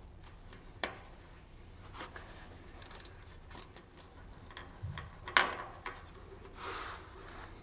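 Scattered small metallic clicks and clinks of a hand tool and steel bolts as the bolts are taken out of a timing-belt wheel cover. There is a short rattle about three seconds in and a sharper ringing clink a little after five seconds, then a brief scrape near the end.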